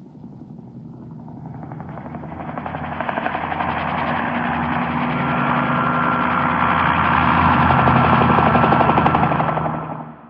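A rapidly pulsing, engine-like mechanical rumble used as a sound-effect sample, swelling steadily louder for most of its length, then fading out quickly near the end.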